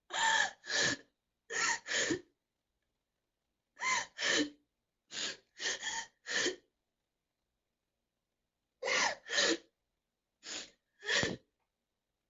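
A girl sobbing: short gasping, catching breaths, mostly in pairs, with a pause of about two seconds midway through.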